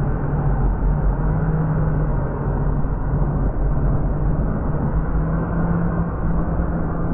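FPV quadcopter's brushless motors and propellers heard from the onboard camera, a steady hum with rushing air noise, its pitch shifting slightly a few times as the throttle changes.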